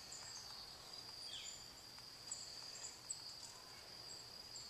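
Quiet outdoor background: a steady high insect trill with scattered short bird chirps.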